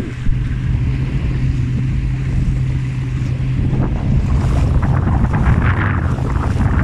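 Boat at sea under engine, with a steady low engine hum and wind buffeting the microphone. About four seconds in, a louder rushing, splashing noise of water and wind takes over.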